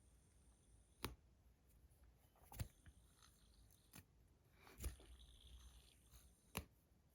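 Five sharp clicks at uneven intervals of about one to one and a half seconds, over a quiet room: a stainless steel fidget spinner being handled.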